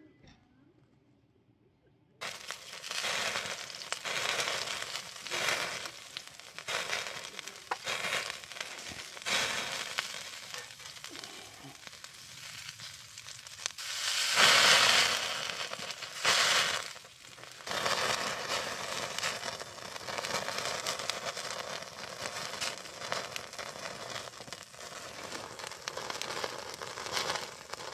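Food frying in a pan, a steady sizzle full of small crackles and spatters. It starts abruptly about two seconds in and swells louder twice around the middle.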